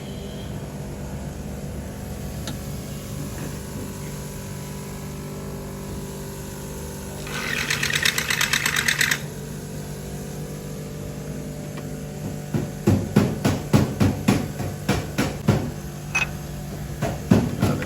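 Repeated hammer blows on metal in a car workshop, about two to three strikes a second from a little past halfway, as a part is knocked out. Earlier a fast rattling run lasts about two seconds, over a steady machine hum.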